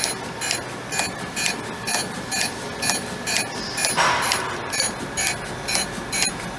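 Surface grinder running, its wheel grinding a steel block with the table fed too fast in the X axis. A sharp metallic tick repeats about twice a second over the running noise, and a brief hiss comes about four seconds in.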